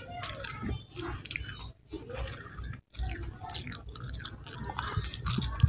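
Close-up mouth sounds of someone biting and chewing crispy fried chicken, with small crackly crunches from the coating.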